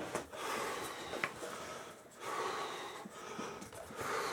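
A man breathing hard in a few long breaths while straining to pull nails out of a wooden frame, with a couple of faint clicks.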